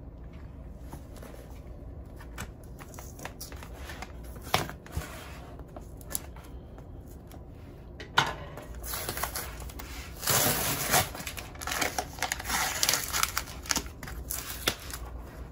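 Hands working a cardboard vinyl record mailer: light taps and scrapes at first, then from about eight seconds in louder scratching and rustling as fingers pick at and peel the packing tape along the box's edge.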